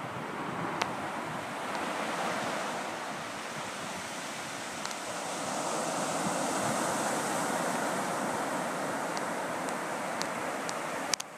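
Small surf breaking and washing up a sandy beach: a steady rush that swells and eases, with wind buffeting the microphone and a few light clicks.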